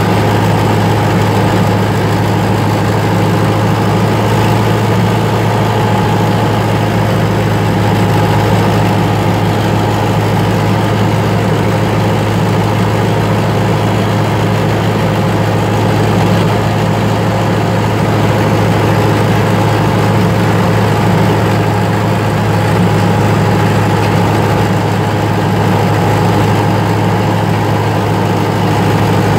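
Fortschritt ZT 303 tractor's four-cylinder diesel engine running at a steady, unchanging speed while the tractor drives along, heard loud from inside the cab.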